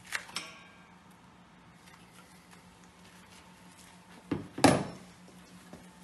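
Metal clinks and clanks of a wrench and brass fittings on the valve of a steel CO2 gas cylinder: a ringing clink at the start, then two louder clanks in quick succession about four and a half seconds in.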